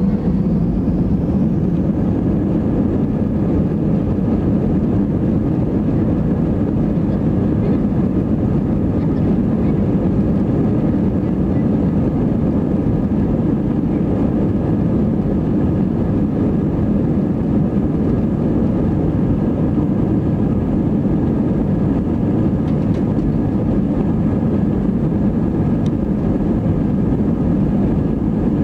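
Airbus A320 jet engines running steadily at taxi power, heard inside the cabin as an even rumble with a faint steady whine above it.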